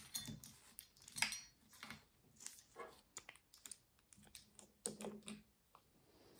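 Quiet, irregular clicks and taps of long fingernails against press-on nails and a nail polish bottle as they are handled.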